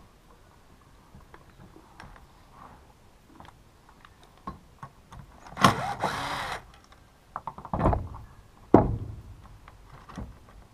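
Hands working on a partly dismantled Husqvarna T435 top-handle chainsaw while its rubber intake boot is worked back into place: small clicks and taps of plastic and metal parts, a louder scraping noise lasting about a second just past the middle, and two heavier knocks a second apart near the end.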